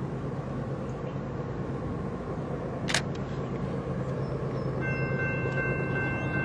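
Freight train rolling by with a steady low diesel rumble. There is one sharp click about three seconds in, and a high, steady whine of three notes begins near the end.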